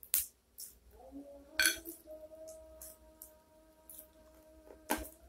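Blue swimming crab shell cracking and crunching as it is pulled apart by hand and bitten, a few sharp cracks: one at the start, one about a second and a half in and a loud one near the end. A faint steady held tone hums in the background from about a second in.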